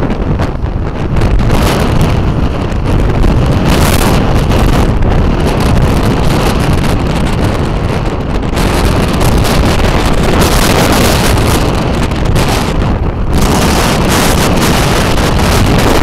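Strong storm wind buffeting the microphone: a loud, continuous low rumble, with gusts that swell and fade every few seconds, the strongest near the end.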